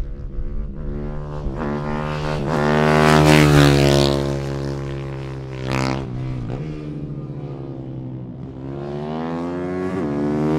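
Ohvale mini bike's single-cylinder engine revving up through the gears, with short dips at the gear changes in the first few seconds, easing off in the middle and building again near the end.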